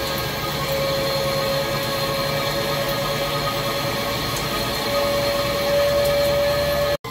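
Hankook Protec 9-NC CNC lathe taking a heavy cut on a forging with a carbide insert: a steady grinding cutting noise with a held ringing whine, a little louder from about five seconds in. The sound cuts off abruptly near the end.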